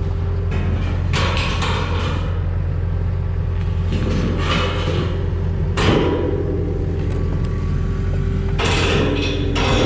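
Skid steer engine running steadily, with several short bursts of metal scraping and clanking as a heavy piece is worked into place, and a sharp knock about six seconds in.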